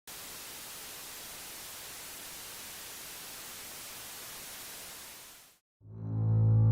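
Steady white-noise static hiss, like an untuned TV or radio, that fades out and stops after about five and a half seconds. After a brief silence a low bowed-string note, like a double bass or cello, swells in near the end.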